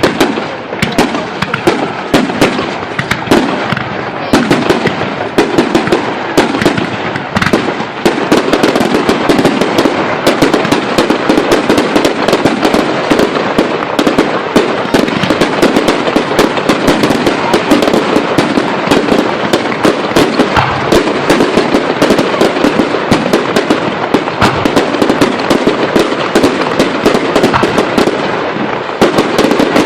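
Fireworks display: a dense, unbroken barrage of bangs and crackles, many reports a second, getting a little louder and denser after about eight seconds.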